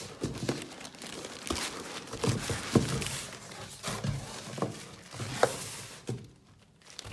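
Plastic wrapping and foam packing material rustling and crinkling as they are handled in a cardboard box, with a few sharp knocks among the rustling.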